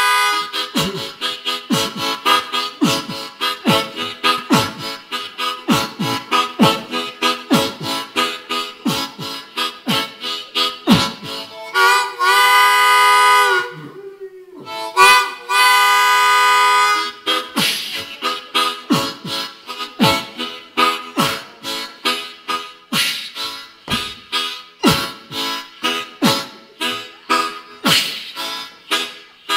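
Solo blues harmonica played close into a microphone as a steam-train imitation: fast, rhythmic chugging chords. About halfway through, two long held chords break the chugging, and then the chugging resumes.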